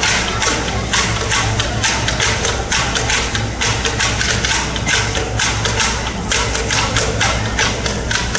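Live percussion playing a steady, driving beat: sharp struck hits, about two to three a second, over a low steady hum.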